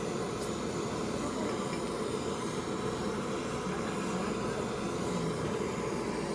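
Steady rumbling noise of a moving vehicle.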